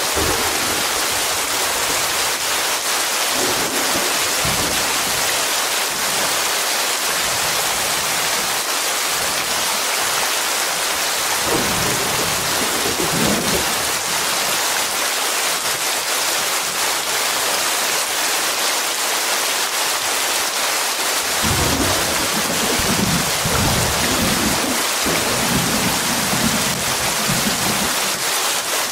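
Thunderstorm: rain hissing steadily throughout, with thunder rumbling about twelve seconds in and again in rolling peals through the last seven seconds.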